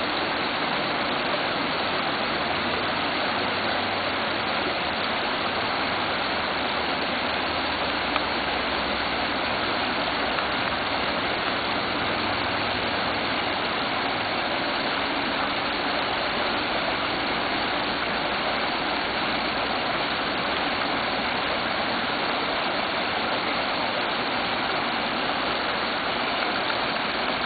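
Steady rushing of creek water, an even noise with no breaks.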